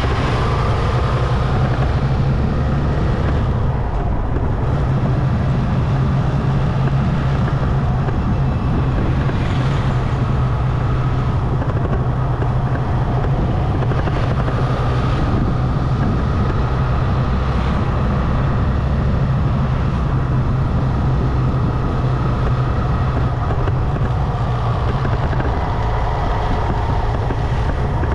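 Motorcycle engine running steadily at cruising speed, a constant low drone mixed with wind and tyre noise heard from on the moving bike.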